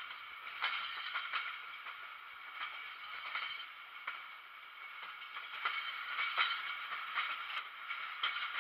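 Passenger train coaches rolling along the track, the wheels giving irregular clicks and clacks over rail joints and points above a steady high-pitched ringing rumble.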